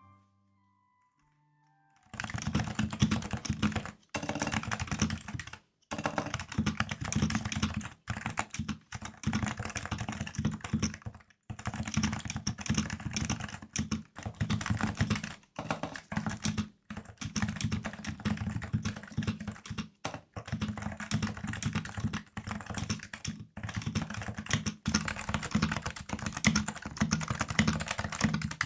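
Typing on a Realforce R2 keyboard with stock 45 g Topre switches: quick runs of keystrokes with short pauses between them. It starts about two seconds in, after a brief silence.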